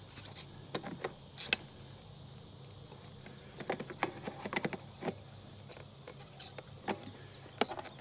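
Scattered small metallic clicks and taps of pliers working at tight nuts on a fence charger's post mount, loosening them.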